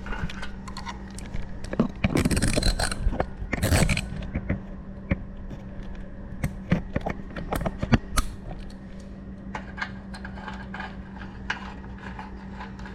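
Metal hand tools clinking and scraping against each other as they are rummaged through to find the right size. There is a longer scraping rattle about two seconds in and a shorter one near four seconds, then scattered sharp clicks.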